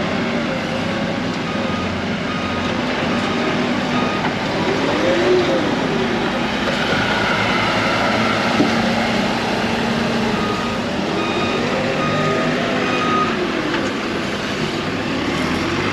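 Lumber-yard forklift running under load, its engine revving up and falling back twice, while its backup alarm beeps about once a second.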